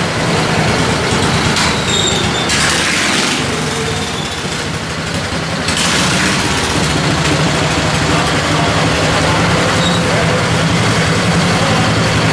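Allis-Chalmers garden tractor engines running hard under load as two tractors pull against each other on a chain, with short bursts of hissing noise a few seconds in and the engine sound growing louder and steadier from about halfway through.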